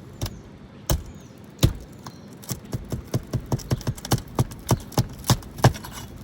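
Flat pry bar knocking against asphalt shingles and roofing nails as the nails are worked loose. A few spaced sharp knocks, then a quick even run of about three a second.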